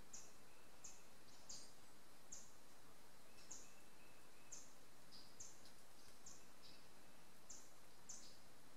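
Woodland ambience: short, very high bird chirps repeating about once a second over a steady hiss, with a faint thin whistle-like tone coming and going beneath them.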